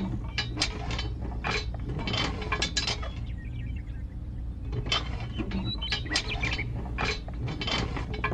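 Irregular clicks and clinks of small hard parts being handled and fitted, over a steady low hum.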